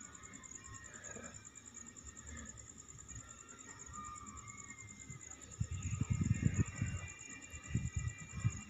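Faint, high-pitched insect trilling that pulses rapidly and steadily, with faint thin calls like distant birds. From a little past halfway comes a series of low thumps and rumbles, the loudest sounds here.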